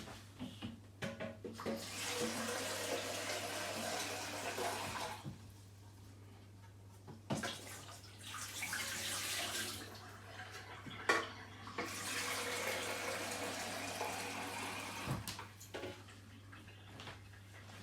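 Water running in three bursts of about three seconds each, with a few sharp knocks in the gaps between them.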